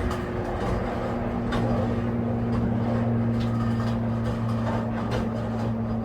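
Hero hand truck water heater lifter being run down, lowering a water heater: a steady mechanical hum with scattered light clicks and knocks.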